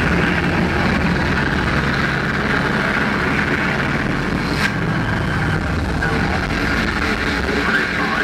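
Steady din of a large concert crowd in an arena, with a low steady hum under it.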